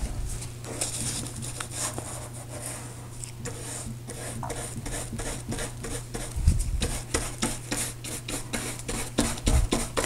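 A bristle brush scrubbing glue over paper collage pieces: a quick, uneven run of short scratchy strokes, with paper handled and pressed down at the start.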